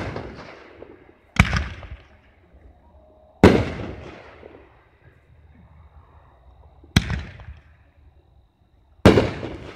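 Aerial firework shells bursting: four sharp bangs a few seconds apart, each trailing off in a fading echo.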